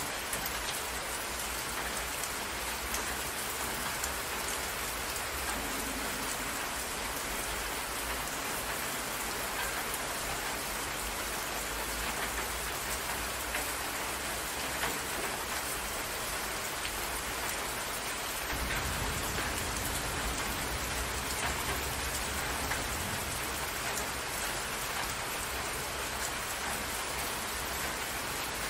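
Steady rain falling on open water: an even hiss with faint ticks of single drops. About two-thirds of the way through, a low rumble comes in underneath.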